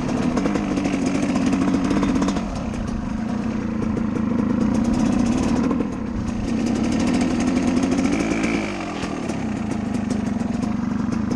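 Dirt bike engine running under throttle close up, its revs climbing and then dropping back three times as the bike rides off, then holding steady.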